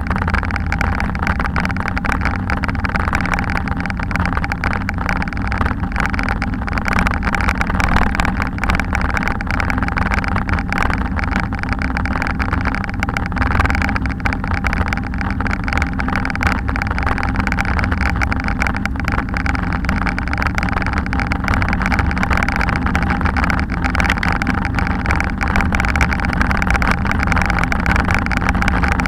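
Bicycle rolling along a concrete block-paved bike path, heard through a bike-mounted action camera: a steady rumble with a fine, irregular rattle from the tyres running over the paving joints.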